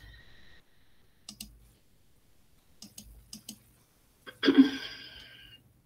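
A few scattered computer clicks, singly and in small clusters. About four and a half seconds in comes a brief pitched sound that fades out over about a second.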